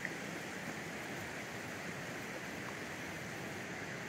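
Steady rush of a river flowing over a rocky bed, an even hiss of moving water.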